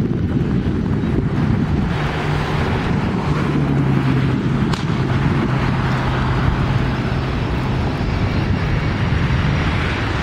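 A jet airliner's engines on final approach, heard as a steady low hum under heavy wind buffeting the microphone, with a faint high whine rising in the second half.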